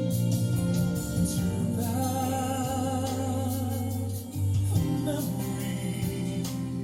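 Background music: a slow song with a singing voice over sustained instrumental chords, the voice entering about two seconds in.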